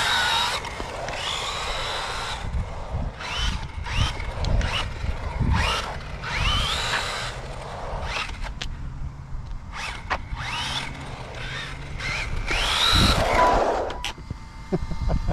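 Brushless electric motor of a 1/8-scale RC short-course truck whining in repeated throttle bursts, the pitch rising each time it accelerates and falling as it backs off, over rough tire noise on asphalt; the loudest burst comes near the end.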